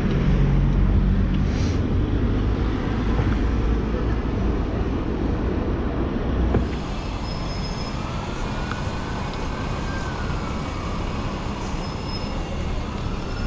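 Road traffic on a city street: cars and buses driving past, as a steady rumble. In the second half an engine whine rises and falls twice.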